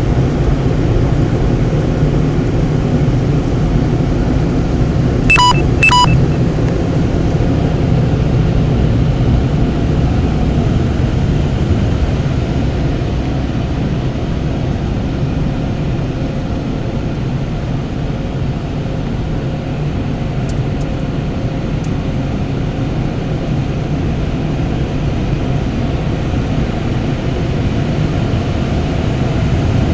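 Automatic car wash machine running with a steady rumble and hiss. Two short electronic beeps sound about five and six seconds in.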